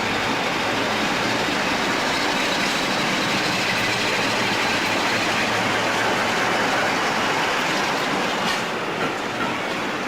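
Train moving along the track, a steady rumble of wheels on the rails with faint wheel squeal; the sound grows more uneven near the end.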